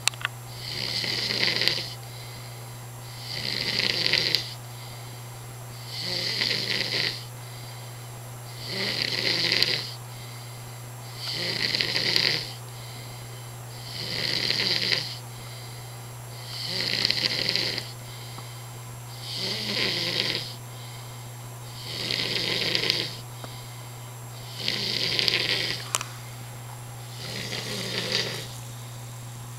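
A man snoring in deep sleep, one long rasping snore roughly every two and a half to three seconds, about eleven in a row, each of them even in length and strength. A steady low hum runs underneath.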